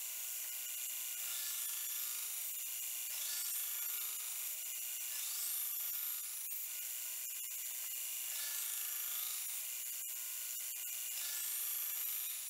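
Belt grinder grinding the bevels of a hardened and tempered 1080 high-carbon steel knife blade: a steady abrasive hiss that rises and falls in pitch every couple of seconds as the blade is drawn across the belt, with a few sharp ticks.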